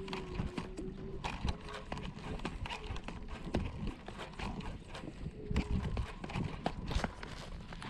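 Choppy waves slapping and knocking irregularly against a bass boat's hull, several sharp slaps a second, over a low rumble of wind on the microphone.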